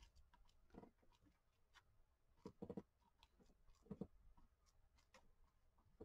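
Near silence, with a few faint, soft taps and rustles of a brush dabbing glue onto a paper collage.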